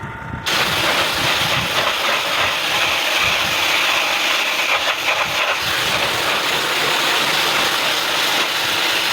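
Water jet spraying steadily and hissing against an air conditioner's condenser coil as the dirt is flushed out; the spray starts abruptly about half a second in.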